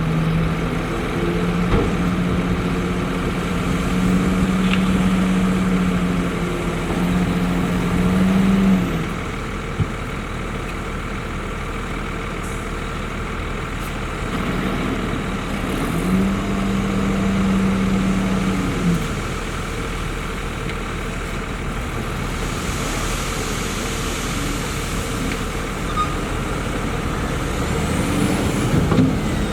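Heavy diesel earthmoving machinery running at a fill site. A strong, steady engine drone holds for the first nine seconds, drops back to a lower running hum, and then comes up again for a few seconds about midway.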